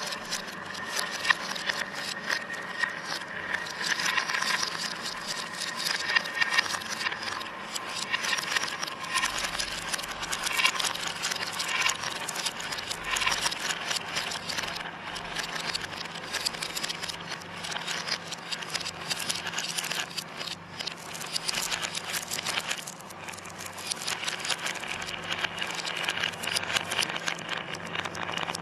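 Many marbles rolling and clattering down a marble run, a dense, continuous rattle of small clicks, over a steady low hum.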